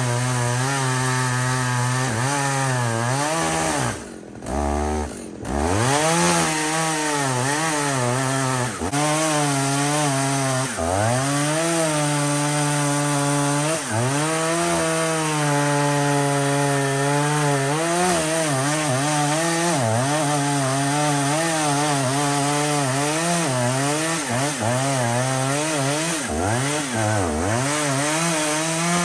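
Jonsered Super 920 two-stroke chainsaw running at full throttle through a felling back cut in a large trunk. Its pitch sags under load and recovers again and again. The throttle is let off briefly twice, about four to five seconds in.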